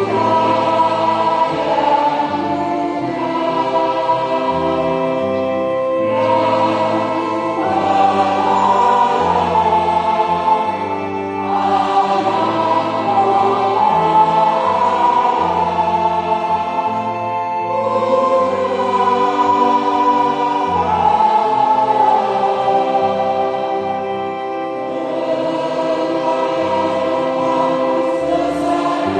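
Mixed choir of women's and men's voices singing a church hymn in parts, holding chords in phrases of several seconds each with short breaks between them.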